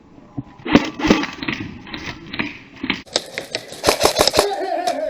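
Airsoft guns firing in irregular single shots and short strings of sharp cracks, thickest between about three and four and a half seconds in. A shout-like sliding call is heard near the end.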